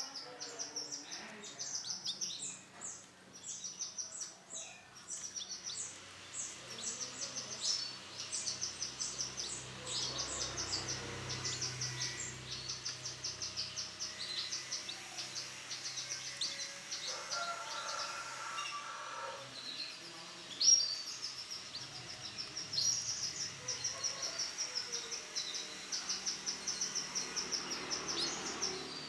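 Male yellow canary singing a long song of rapid, high-pitched repeated chirps and trills with only brief pauses, and one sharper, louder note about two-thirds of the way through.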